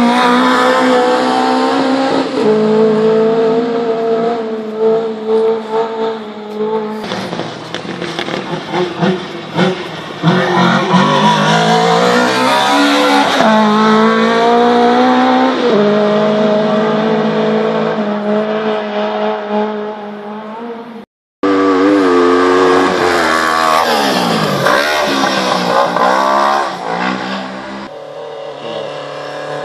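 Autocross cars' engines running and revving on a dirt track, the pitch rising and falling as they accelerate and back off. The sound breaks off for a moment about two-thirds of the way through.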